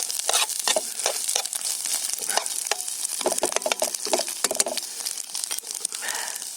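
Food frying in a pan: steady sizzling fat with scattered crackles and clicks.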